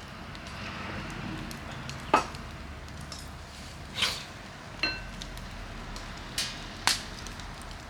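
Wood fire crackling, with sharp pops and snaps every second or so. There is one light metallic clink about five seconds in.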